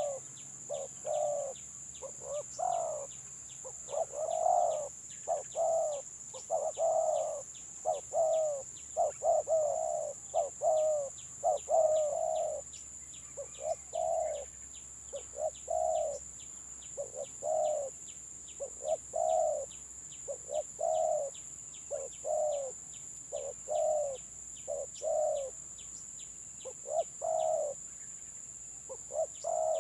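Spotted doves (tekukur) cooing in the broken, stuttering 'gagap' style: many short coo notes in quick succession, bunching most densely about a third of the way in.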